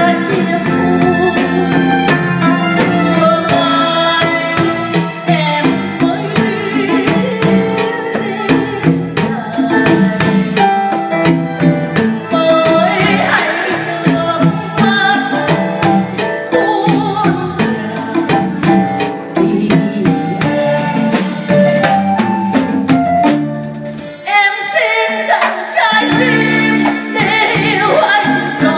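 A woman singing a slow Vietnamese ballad live into a microphone, backed by a band of drum kit, keyboard and electric guitar. The low accompaniment drops away for a moment near the end, then the full band comes back in.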